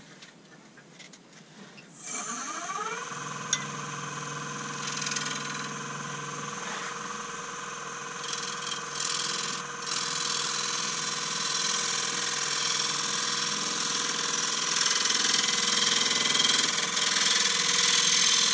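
A Nova Saturn wood lathe starts about two seconds in, its motor whine rising as it spins up, then runs steadily. A gouge cuts the outside of the spinning beech bowl blank with a steady high cutting hiss that grows louder toward the end.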